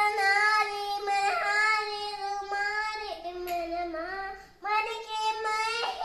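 A child's voice singing long, held notes without clear words, with a short break about three-quarters of the way through.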